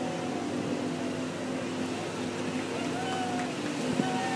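Motors of several boats running on the river, a steady drone, with distant voices calling out over it.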